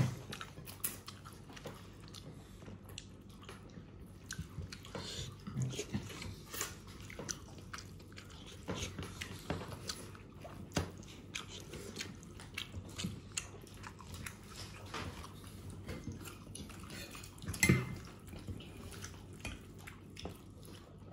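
Close-up eating sounds: chewing rice and curry, with many small scattered clicks and smacks, and one louder knock about three-quarters of the way through.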